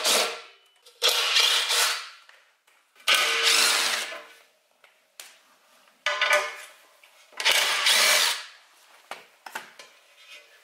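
Cordless driver running in several short spurts of about a second each, backing out the bolts that hold a motorcycle's aluminium skid plate.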